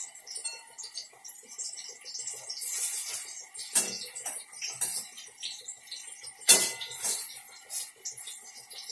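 Brinjal (eggplant) slices sizzling and crackling as they shallow-fry in hot oil, with a spatula scraping and clinking against the pan, the loudest clinks about four and six and a half seconds in.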